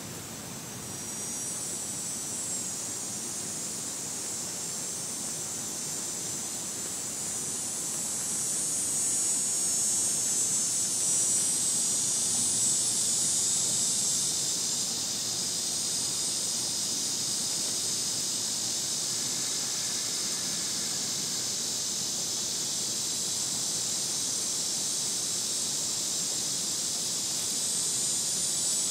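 Cicadas calling: a steady, high-pitched buzzing drone that swells about a second in and is loudest around the middle.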